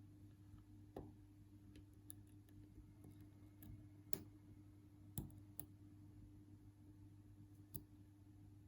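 Faint, scattered clicks of a lock pick and tension tool working inside a Union padlock, about five over several seconds, over a low steady hum.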